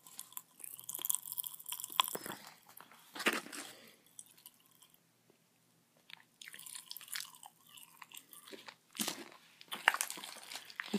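Close mouth sounds of chewing Pop Rocks bubblegum, with scattered crackles and pops from the candy, pausing briefly around the middle.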